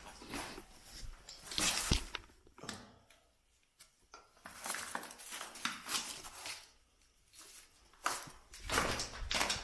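Footsteps scuffing and crunching over loose dirt and stones on a cave floor, in uneven bursts with a few sharp clicks of small stones knocking together.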